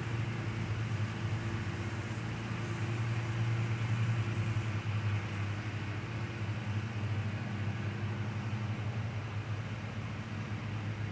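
Engines of several zero-turn riding mowers running steadily while mowing, a constant low hum that holds the same pitch throughout.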